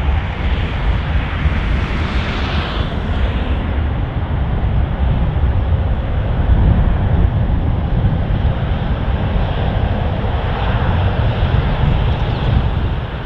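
Qantas Airbus A330-303's twin General Electric CF6 turbofans at takeoff thrust, heard from behind as the airliner accelerates away down the runway: a loud, continuous deep rumble under a hissing jet noise. The high hiss is strongest about two to three seconds in.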